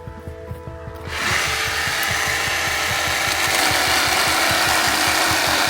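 Background music with a steady beat; about a second in, a cordless battery chainsaw starts cutting through the trunk of a dead bush and keeps running loud and steady over the music.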